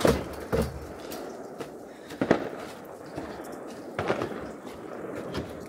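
Irregular sharp knocks and thuds, about five in all and spaced a second or two apart, with the loudest near the start and about two seconds in.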